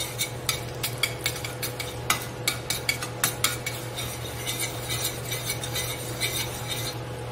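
A utensil clinking and scraping against a stainless steel pan as melting butter is stirred, in quick irregular taps that stop near the end.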